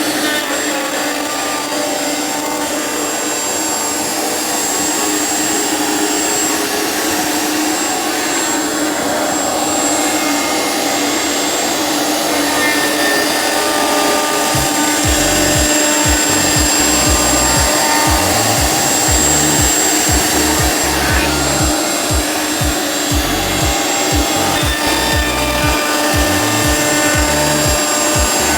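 Router spindle running a six-flute carbide surfacing bit (CMT 922.034.11) across epoxy resin, a loud steady whine with a constant high tone and the hiss of cutting. From about halfway through, a low rhythmic pulsing joins it.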